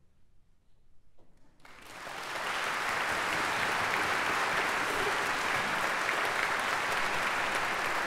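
A quiet pause of about a second and a half, then a concert audience breaks into applause, building within a second to steady clapping.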